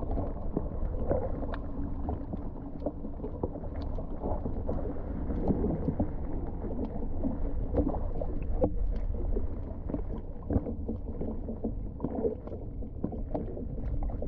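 Muffled underwater sound picked up by a submerged camera in a landing net: a low, steady sloshing rumble of water with scattered clicks and knocks as the net is moved.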